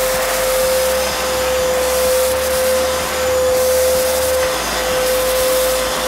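Arnica Vira washing vacuum cleaner running in wet-cleaning mode: a steady motor whine with one constant tone, as the wet nozzle sucks cleaning liquid back up off a laminate floor. The level swells and dips gently every second or two as the nozzle moves.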